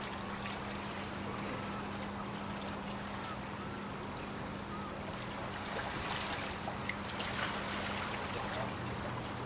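Calm harbour ambience: gentle water lapping with a steady low hum running underneath, and light crackling splashes about six to eight seconds in.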